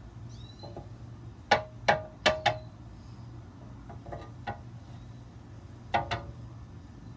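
A fish net's frame knocking against a clear plastic tub while scooping out mosquito larvae: four sharp knocks with a brief ringing tone in quick succession, then another knock or two near the end.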